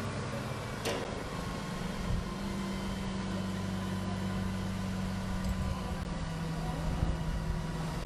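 Mobile crane's diesel engine running with a steady low drone, its speed shifting about a second in and again about six seconds in. One sharp click about a second in.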